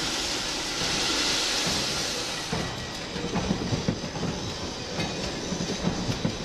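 Train running on rails: a steady rushing hiss, then from about halfway an irregular clatter of the wheels over the track.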